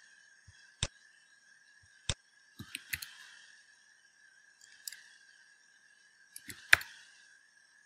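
Scattered clicks of computer keyboard keys and a mouse: single clicks a second and two seconds in, quick clusters around three seconds and near the end, the loudest of them just before the end. A faint steady high hum runs underneath.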